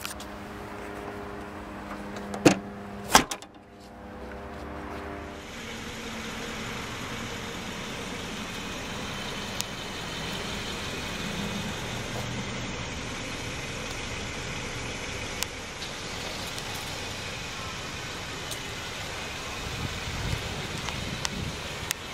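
Two loud thumps about two and a half and three seconds in, from the Crosstrek's rear hatch being shut, over a steady low hum. After that, a steady outdoor background noise with a few faint ticks.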